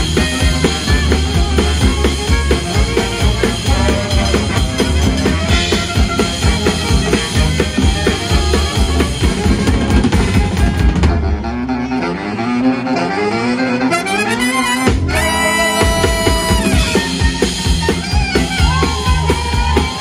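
Live swing band playing an instrumental passage with drum kit, bass, saxophone and brass. About halfway through the drums and bass drop out for a climbing run of notes and a held chord, then the full band comes back in.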